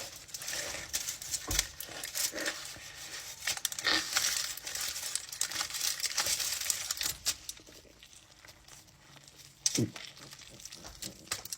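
Close-up eating of a big burrito bite: the burrito's wrapper crinkling as it is squeezed, with chewing and mouth noises, busy and crackly for about seven seconds and then quieter. A short low vocal sound comes near the end.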